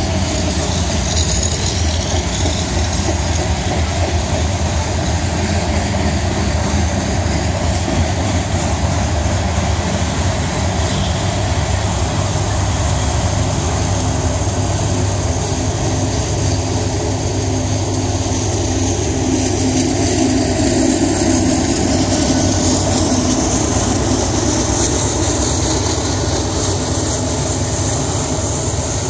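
Covered hopper cars of a long Union Pacific freight train rolling past, a steady rumble of steel wheels on rail. In the second half a rear-end locomotive passes and moves away, its engine adding to the rumble.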